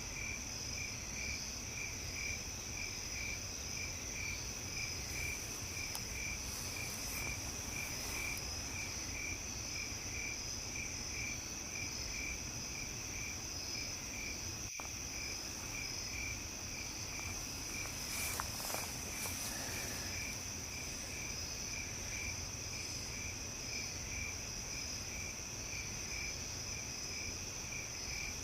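Crickets chirping: a steady high trill with a slower, regular chirping under it, about two to three chirps a second.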